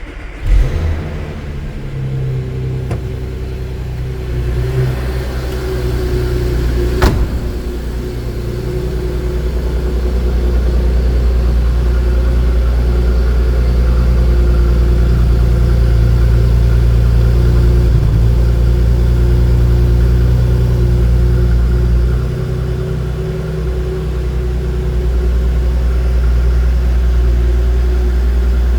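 Porsche Cayenne 957's 3.6-litre VR6 engine running through the stock exhaust with a steady, low drone that grows louder about eight to ten seconds in. A single sharp click comes about seven seconds in.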